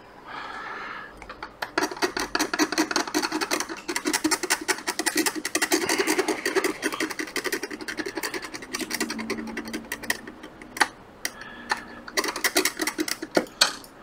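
Fast, dense scratching and clicking of a small hand tool scraping over an iPad Pro's logic board. It starts about two seconds in, pauses briefly around eleven seconds, and stops just before the end.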